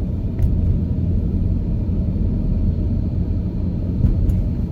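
Steady low rumble of a car driving, heard from inside the cabin: engine and road noise, with a faint tick shortly after the start and another near the end.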